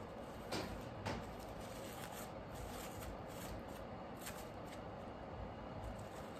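Artificial flower stems and petals being handled, a quiet rustling as a wired poppy stem is pushed into a hand-held bouquet, with two sharp clicks about half a second and a second in.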